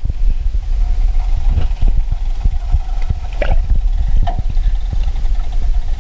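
Muffled underwater sound from a submerged action camera: a heavy low rumble of water against the housing with irregular knocks, and a faint steady hum from about a second in.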